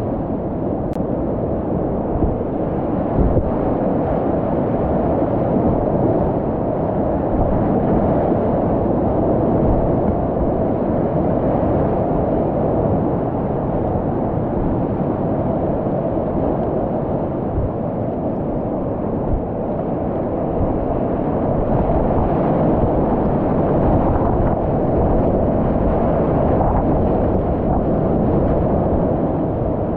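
Whitewater rapids rushing loudly and steadily around a kayak, heard close to the water from the boat as it runs the rapids.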